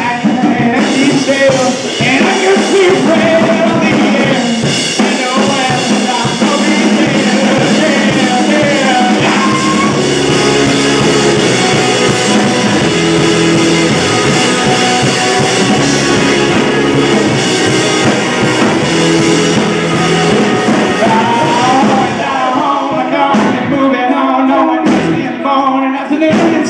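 Live rock band playing loud with electric and acoustic guitars, bass and drum kit. Singing at the start gives way to an instrumental passage, and voices return near the end.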